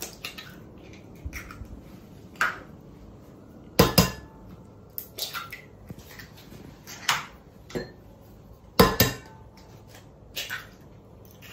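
Eggs being cracked against the rim of a glass mixing bowl: a series of short, sharp taps and knocks, the loudest about four and nine seconds in.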